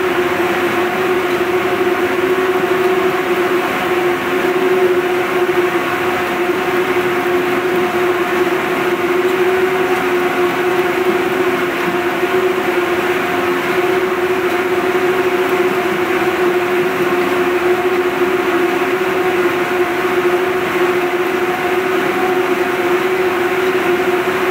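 Ring spinning frames running: a loud, steady whirring drone of the high-speed spindles with a strong steady hum through it.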